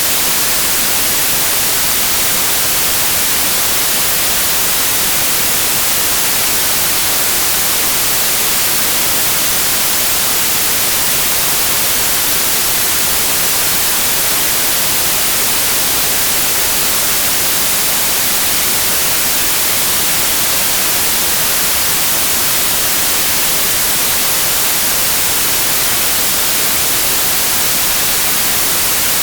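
Steady white noise: an even, unchanging hiss, loud and brightest in the high end.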